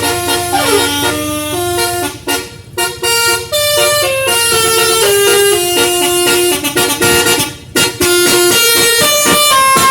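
A bus's 12-note basuri horn, a set of tuned air horns, playing a tune of held notes that step up and down in pitch, with a few short breaks between phrases.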